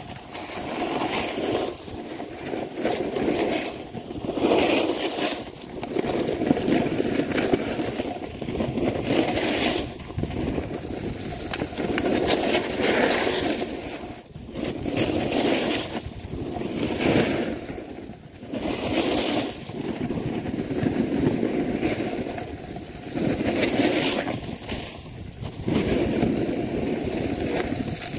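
Snowboard base and edges scraping and carving over packed snow, the rasp swelling and fading with each turn, mixed with wind rushing over the microphone.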